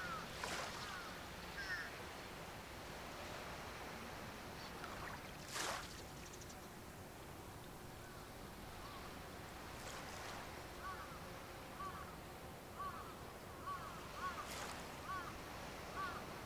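Seaside ambience: a steady hiss of wind and water with a few brief rushing swishes, the loudest about five seconds in. Over it, short repeated bird calls come about once a second in the second half.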